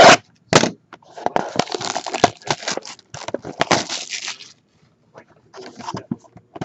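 Plastic shrink wrap being torn off a sealed trading-card hobby box, crinkling and crackling in bursts. It pauses briefly before more crinkling near the end.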